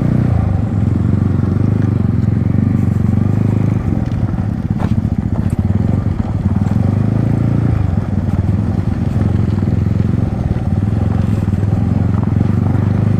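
Yamaha MT-15's single-cylinder engine, fitted with an aftermarket Akrapovic exhaust, running steadily while the bike is ridden.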